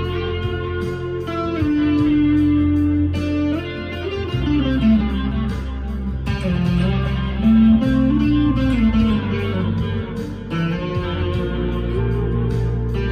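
Harley Benton SC Custom II electric guitar played through an amp's crunch channel: a lead line of single notes with string bends.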